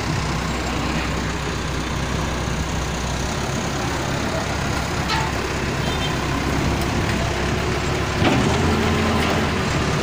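Diesel engine of a wheeled front loader running steadily as it works debris with its bucket. It grows louder about eight seconds in, as the engine takes more load.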